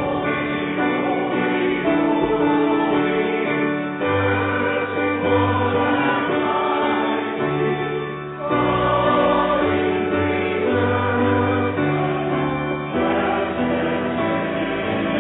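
Slow church music: a choir singing over sustained chords, the bass note changing every second or two.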